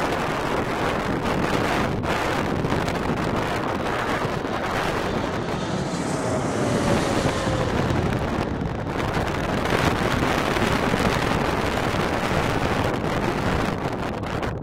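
Twin-engine wide-body jet airliner on final approach passing low overhead, its engines a steady rush, with a faint whine dropping in pitch as it goes over. Strong gusty wind buffets the microphone throughout.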